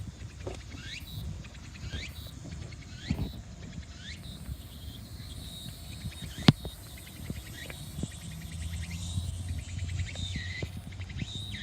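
Outdoor sound with short chirping calls, about one a second, over the first few seconds and light tapping throughout. A single sharp click comes about six and a half seconds in, and a low engine hum builds over the last few seconds.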